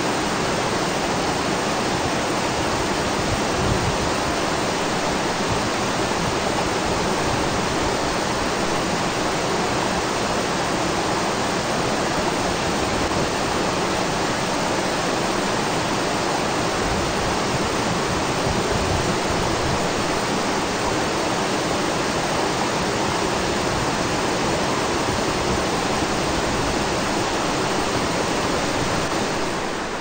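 Flash-flooded mountain stream, swollen and muddy, rushing loudly and steadily through a gorge.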